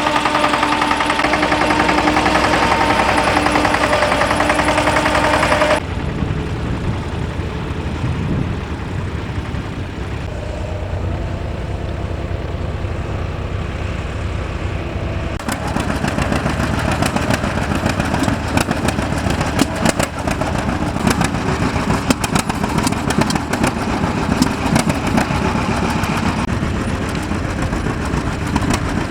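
Tractor engines running while ploughing, heard in three stretches that change abruptly about six and fifteen seconds in. The first is a steady engine note, the second a quieter low running, and the last a rapid clattering.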